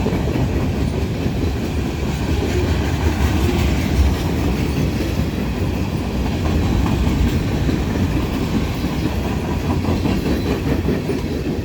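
Freight train cars rolling steadily past, their wheels clacking over the rail joints.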